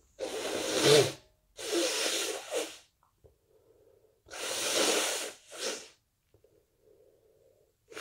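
A person with a stuffy head cold sneezing, four loud bursts with the last two close together, and faint congested breathing through the nose between them.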